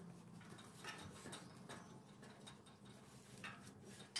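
Faint, irregular scratchy strokes and light ticks of a bristle paintbrush dragged along steel gate bars, laying on the first coat of black paint, over a faint steady low hum.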